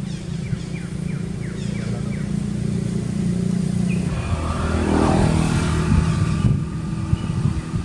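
A motor vehicle's engine running as it passes close by, getting louder to a peak about five seconds in and then easing off.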